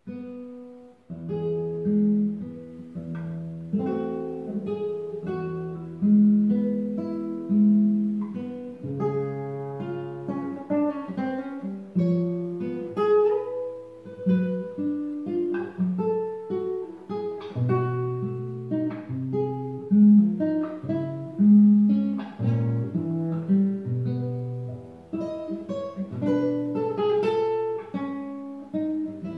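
Nylon-string classical guitar played fingerstyle: a plucked melody of single notes over a moving bass line.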